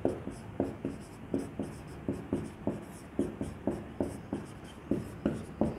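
Handwriting: a run of short scratching strokes and taps, about three a second, as words are written out.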